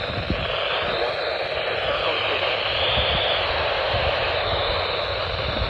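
Steady static hiss from a weather radio broadcast, with low crackling underneath.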